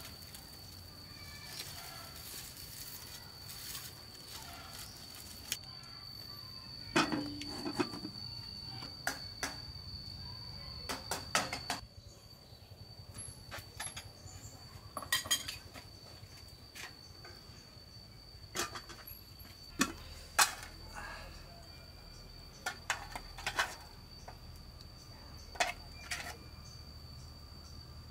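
Kitchenware clinking and knocking now and then as it is handled, a dozen or so separate strikes at irregular intervals, over a steady high-pitched insect drone.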